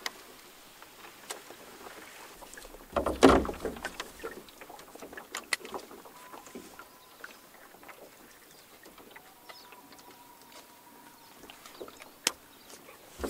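Canoe being paddled through shallow lily-pad water: a loud swish of a paddle stroke about three seconds in and another at the end, with scattered light knocks and clicks against the canoe hull.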